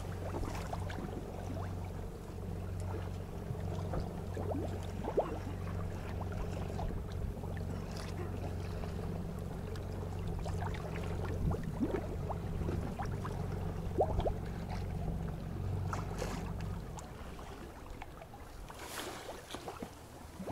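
Boat engine running steadily at idle, then cutting off a few seconds before the end, with scattered small knocks and clicks.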